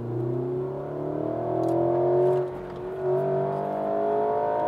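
Porsche Macan's engine and sport exhaust accelerating hard, heard from inside the cabin. The engine note rises, dips at an upshift about two and a half seconds in, then climbs again.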